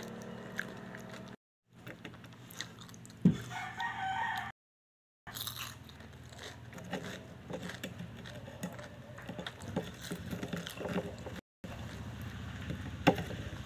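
Close-up chewing and crunching of fried pork lumpia, with many small clicks. About three seconds in there is a knock, then a brief tonal call in the background. The sound cuts out completely for a moment several times.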